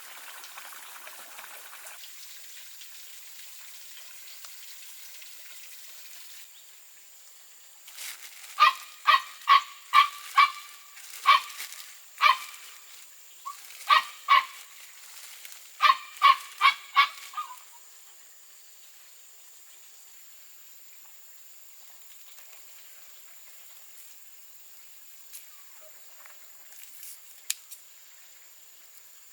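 A goose honking: about fifteen loud honks in three or four quick runs, starting about a third of the way in and lasting about ten seconds. A faint water hiss at the very start.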